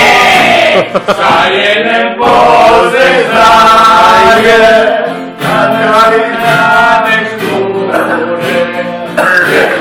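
A group of men singing together in chorus, in phrases of long held notes with short breaks for breath.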